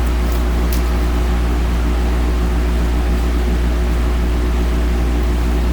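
A steady low hum with a few steady higher buzzing tones over it, unchanging throughout, and a faint tick or two in the first second.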